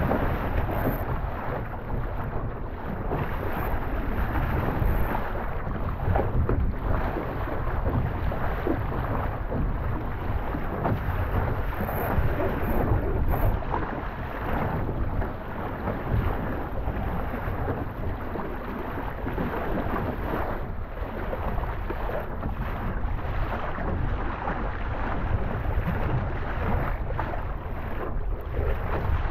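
Wind buffeting the microphone in a steady rush, with no engine tone or voices.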